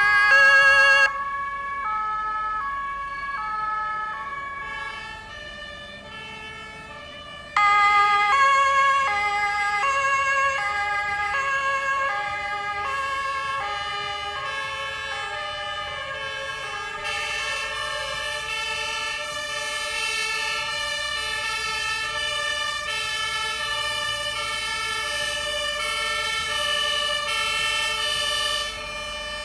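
German two-tone fire brigade sirens (Martinshorn) on a column of fire vehicles driving past, each switching back and forth between a high and a low note. A loud one cuts off about a second in and another loud one starts about seven seconds in. From about halfway through, several sirens overlap out of step.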